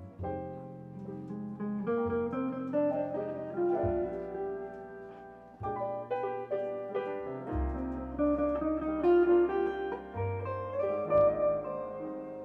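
Jazz trio playing, led by a semi-hollow electric guitar picking a single-note melodic line over low, sustained bass notes. Around two seconds in, the guitar line climbs step by step.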